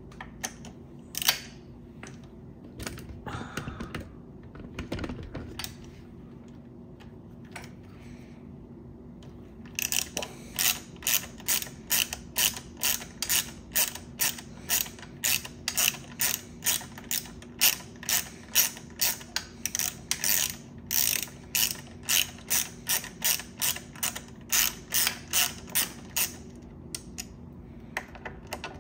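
Silca ratcheting T-handle driver clicking steadily, about three clicks a second, as it is worked back and forth on a mechanical disc brake caliper's mounting bolt to remove the caliper. A few scattered clicks and knocks of tool handling come first, and the ratcheting starts about ten seconds in and stops near the end.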